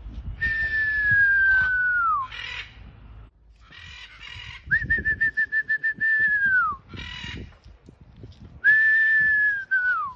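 A person whistling three long recall notes, each held high and then sliding down at the end, the second starting with a quick pulsing warble, to call free-flying macaws back. Short harsh bursts sound between the whistles.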